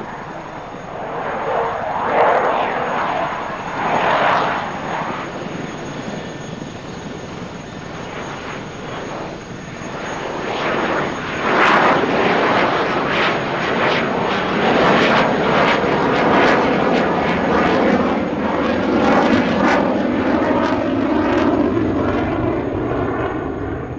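EF-18 Hornet fighter jet flying past, its two General Electric F404 engines making loud rushing jet noise. The noise swells twice early on, grows louder and crackling about eleven seconds in, and a lower tone in it slowly falls in pitch toward the end.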